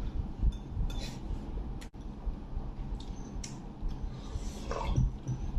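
Tableware clinking at a meal: scattered light taps and clinks of chopsticks, spoons and bowls, with a brief falling tone about five seconds in.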